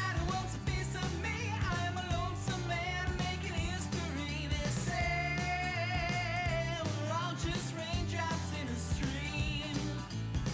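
Rock-pop song with a male singing voice, guitar and a steady beat.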